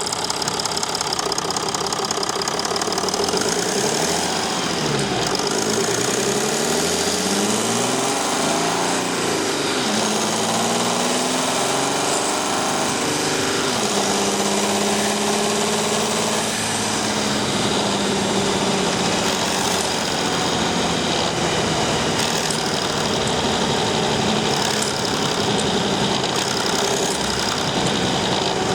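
Mercedes Sprinter 219 CDI V6 diesel engine running under changing throttle, heard up close at the turbocharger. Its pitch rises and falls several times in the first half, drops once more, then holds a steady note.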